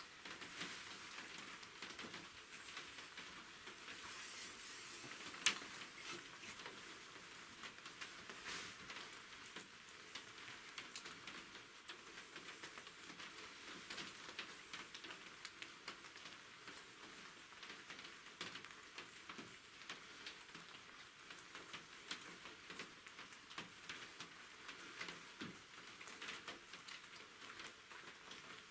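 Black bear feeding at a bait barrel: faint, irregular crunching and ticking as it eats the bait, with one sharper click about five seconds in.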